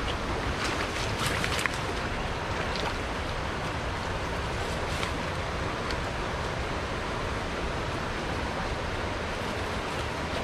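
Steady rushing of flowing stream water, with a few faint clicks and rustles from a nylon cast net being handled.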